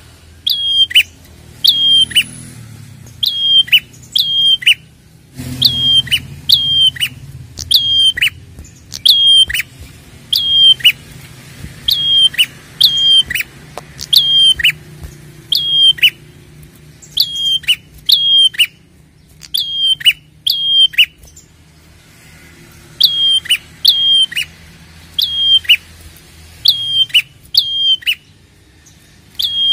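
Caged red-headed prenjak (a tailorbird) calling loudly and insistently. Its sharp, high notes drop in pitch and come mostly in quick pairs about once a second, with a few short breaks. This is the vigorous 'gacor' calling used as a lure to set other prenjak calling.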